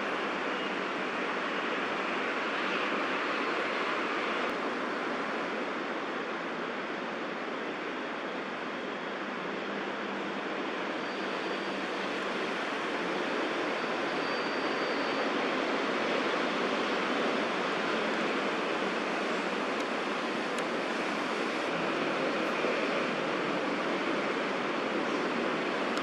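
Steady rushing hum of distant city traffic, even throughout, with no distinct knocks or calls standing out.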